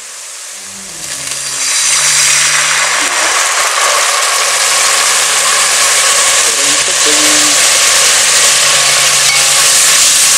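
Chopped sofrito vegetables sizzling loudly in hot oil in a kotliček pot over a wood fire, just after a splash of white wine has gone in. The sizzle swells about a second and a half in and then holds steady.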